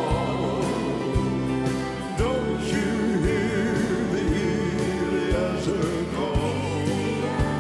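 Live gospel music: piano, organ and drums with a low beat about once a second, under voices singing with wavering vibrato.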